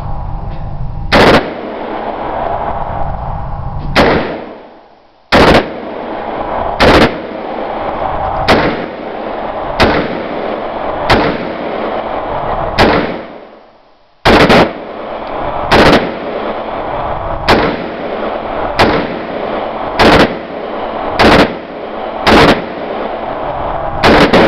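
DPMS AR-15 rifle in .223/5.56 firing single semi-automatic shots at a slow, steady pace, about sixteen of them roughly a second and a half apart, several loud enough to clip.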